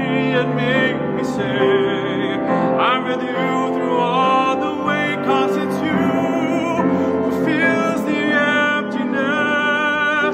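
Baritone voice singing with vibrato, accompanied by a grand piano.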